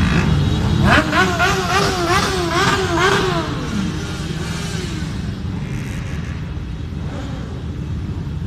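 A stream of motorcycles riding past at low speed, engines rumbling together. About a second in, one engine is revved up and down several times in quick succession, then drops away.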